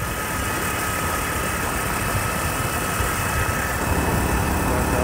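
Motorcycle engine running steadily while riding on the road, a continuous rushing noise with a thin steady whine over a low rumble.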